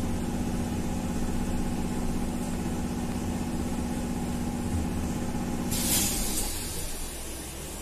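Inside a BKM 333 trolleybus: a steady electric hum over a low drone, which stops about six seconds in with a short hiss of released air.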